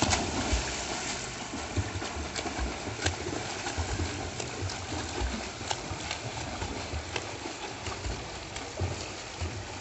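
Front-crawl swimming splashes in a pool: the arms and kicks slap the water in a steady rhythm, about two splashes a second, over a constant wash of churned water.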